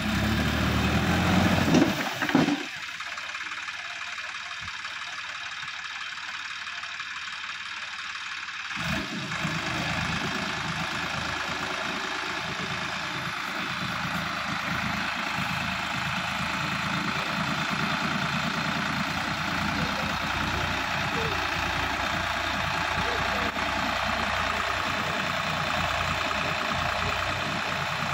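Sonalika DI 50 RX tractor's diesel engine running while driving through wet mud, loudest in the first two seconds; the deep part of the engine sound drops away for several seconds and comes back steady about nine seconds in.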